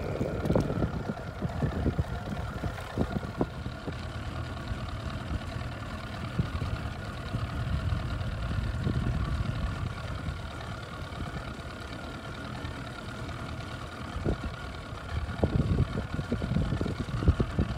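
Outboard motor running steadily, a hum with several held tones, with wind gusting on the microphone near the end.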